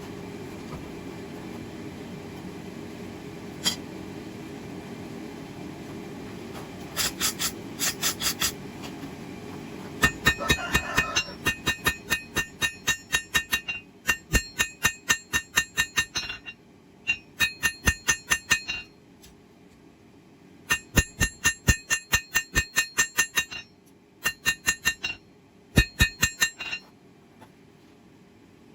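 Hammer blows on hot steel against an anvil, a bright ringing clink on each strike, in runs of about three to four blows a second with short pauses between runs, as the knife's handle is drawn out. A steady low rumble sits under the first half and fades out partway through.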